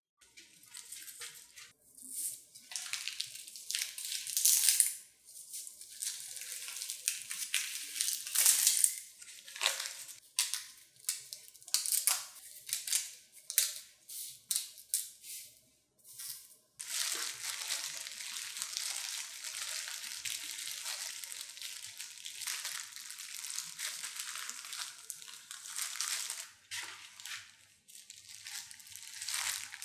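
Crisp crackling and tearing of dry laver (gim) sheets being handled on a wooden cutting board, in short, sharp bursts. In the second half comes a steadier rustling of plastic food gloves as rice is pressed and spread over the laver.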